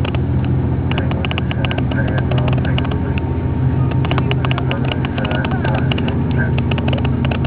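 KiHa 8500 series diesel railcar's engine running with a steady low drone, with light, irregular clicking and rattling over it.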